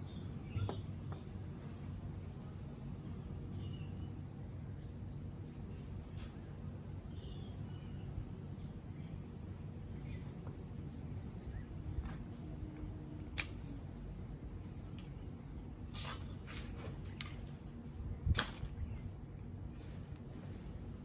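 Steady high chirring of insects, with a few short, sharp scrapes in the second half as a Zippo mag-strike fire starter is struck to throw sparks onto a fluffed-up paraffin-wax firelighter, which catches.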